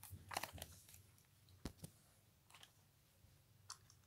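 Near silence with a few faint clicks and taps of plastic toy vehicles being handled: two small knocks close together a little under two seconds in.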